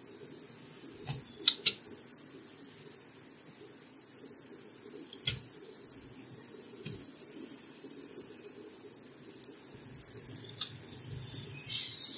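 Scattered sharp clicks and taps of a graphics card and its metal bracket being handled and pushed into a slot in a desktop computer case, over a steady hiss. The loudest are two clicks in quick succession about a second and a half in.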